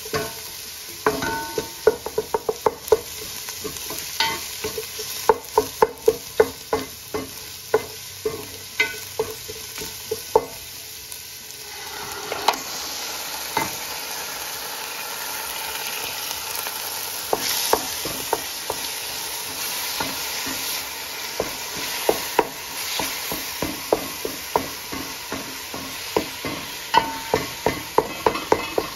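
Wooden spoon stirring and knocking against a stainless steel pot while chopped onion and garlic sizzle in oil. About twelve seconds in, minced chicken goes into the hot pot and the sizzling grows louder and steadier, then the spoon knocks and scrapes again as the chicken is stirred.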